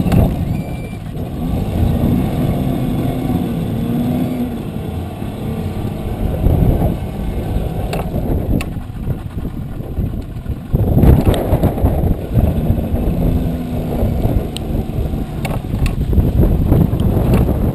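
Strong gusty wind buffeting the microphone over the low, steady running of a small boat's motor, with choppy water splashing against the hull and a few sharp knocks.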